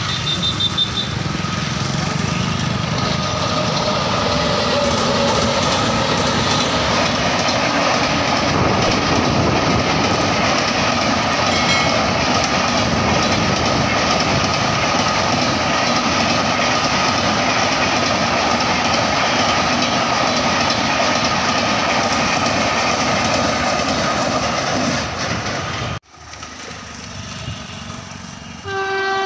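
Express passenger train coaches rushing past at full speed, a steady loud rush of wheels on rail that cuts off abruptly about three seconds before the end. A train horn starts sounding just before the end.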